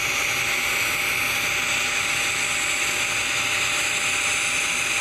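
TIG welding arc burning steadily on a carbon-steel pipe joint during the hot pass: an even hiss with a faint steady hum.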